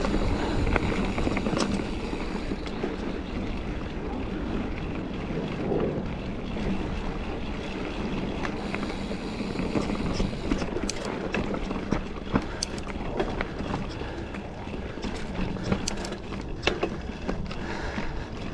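Mountain bike ridden along a dirt trail: continuous tyre and wind noise on the camera's microphone, with scattered sharp clicks and rattles from the bike over the second half.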